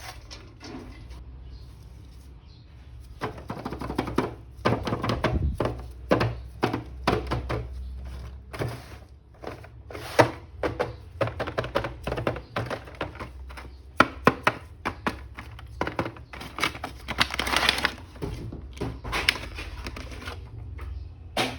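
Hands handling a plastic action figure and its packaging: a run of irregular clicks and light knocks mixed with plastic rustling and crinkling, with a longer rustle near the end.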